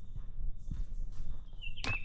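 Footsteps on a forest trail, with a sharp snap or knock near the end. A bird gives a short warbling call near the end, over a faint steady high insect-like tone.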